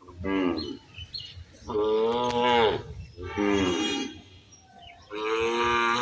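A calf mooing four times, short calls alternating with longer drawn-out ones.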